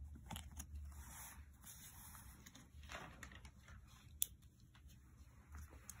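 Faint rustling and handling of lined notebook paper, with a few light scratches and ticks and one sharp click about four seconds in.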